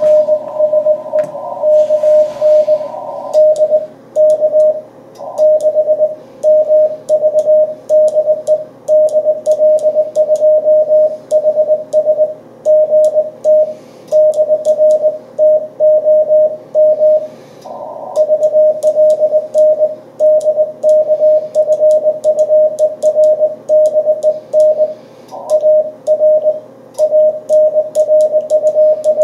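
Morse code (CW) on a ham radio transceiver during a 40-metre contact: a single mid-pitched tone keyed on and off in dots and dashes, with faint sharp clicks above it.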